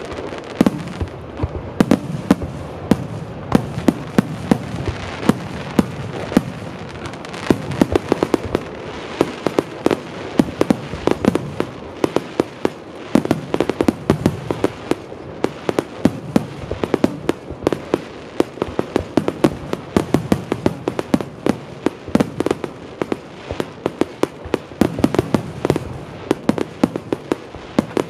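Fireworks finale barrage: aerial shells bursting in rapid, overlapping bangs, several a second, over a bed of crackle.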